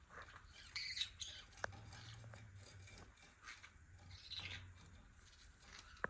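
Green-cheeked conures giving short, scattered chirps and squawks, with a couple of sharp clicks.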